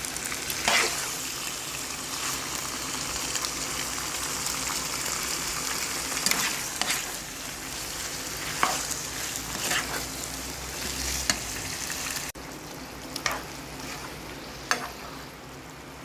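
Squid stir-frying in a pan, sizzling steadily, with a spoon knocking and scraping against the pan every second or two. The sizzling drops abruptly about twelve seconds in and carries on softer.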